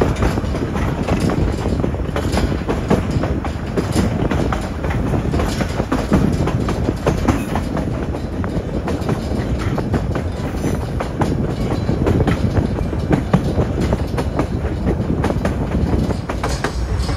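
Narrow-gauge passenger train rolling along the track: a steady low rumble with irregular clicking of the wheels over rail joints.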